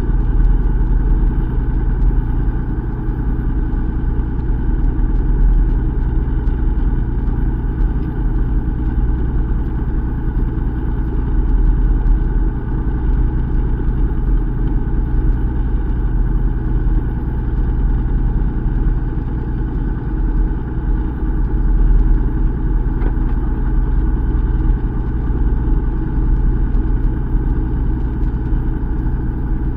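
Fishing boat's engine running at a steady, slow hum, low and unchanging.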